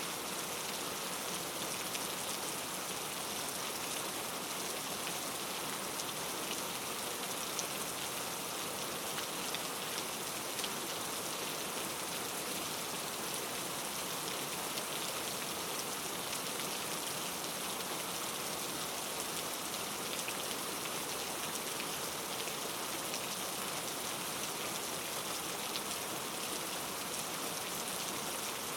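Steady rain falling, a dense even hiss with many fine drop ticks on a surface.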